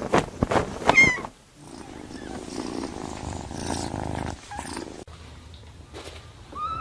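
Animal sounds: a few sharp clicks and a short falling call about a second in, then a steady low rumble, and a short rising-and-falling call at the very end.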